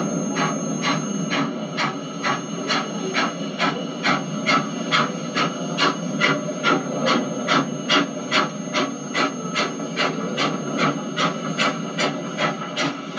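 Steam locomotive working a train, its exhaust beating in an even run of short rasping chuffs, about two and a half a second.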